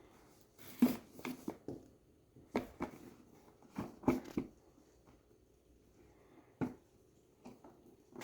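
Box and packaging being handled while unpacking: scattered rustles, clicks and light knocks in several short clusters.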